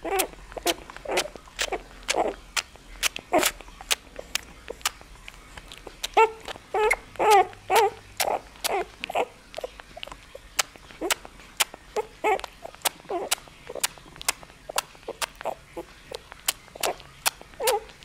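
Nine-day-old bull terrier puppy whimpering and squeaking in a long run of short high calls, about two a second, mixed with sharp clicks. The calls come thickest and loudest about six to nine seconds in.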